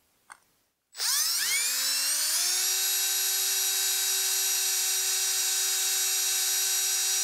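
Electric drill starting about a second in, its motor whine rising in pitch over a second or so, then running at a steady pitch as the twist bit drills a hole through a thin aluminium sheet.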